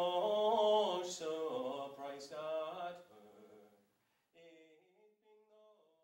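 A man singing a slow Irish air unaccompanied, holding long, wavering, ornamented notes. The voice fades away about three to four seconds in, leaving only faint snatches of singing.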